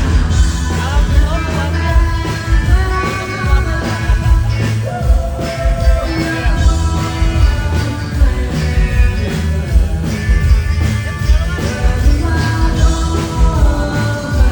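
A live rock band playing a song at full volume, with drums and bass under a gliding melody line, during a rehearsal run-through.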